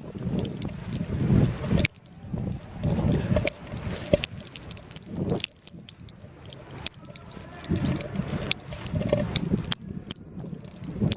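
Wind buffeting the microphone in a snowstorm: a gusting low rumble that rises and falls every second or two, with scattered small clicks.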